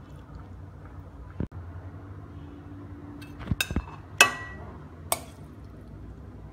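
Dishware clinking: a few light knocks, then a sharp ringing clink of glass or ceramic about four seconds in and another a second later, over a low steady hum.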